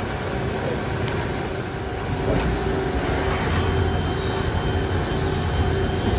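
Haas ST-20 CNC lathe running steadily: a continuous mechanical rumble and hiss with a faint steady whine.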